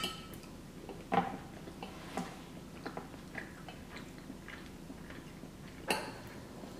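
Close-up eating sounds: quiet chewing of a mouthful of cheesy pasta, with a metal fork clicking and scraping against a glass baking dish. The clicks come every second or so, the loudest about a second in and near the end.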